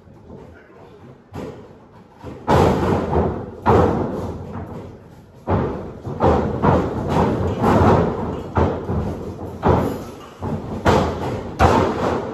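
Wrestlers' feet and bodies hitting a wrestling ring's mat, a run of heavy thuds and slams that starts about two and a half seconds in after a quieter stretch, ending with a wrestler taking a bump onto the mat.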